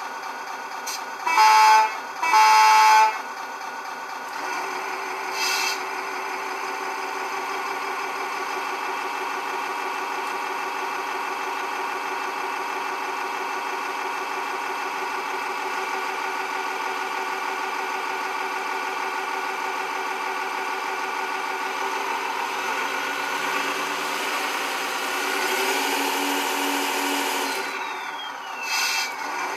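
Servonaut sound module in an RC model truck playing a Scania V8 sound through its speaker: two short, loud horn blasts about a second and a half in, then the simulated V8 idling steadily, swelling slightly near the end.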